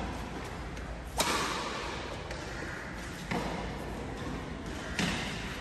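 Badminton rackets striking a shuttlecock during a doubles rally: three sharp hits about two seconds apart, the loudest about a second in, each with a short echo in the hall.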